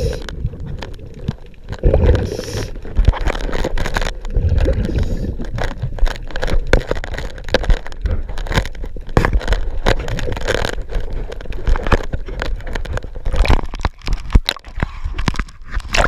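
Underwater noise of a scuba diver surveying a boat hull: irregular gurgling of bubbles, with scrapes and crackling clicks throughout.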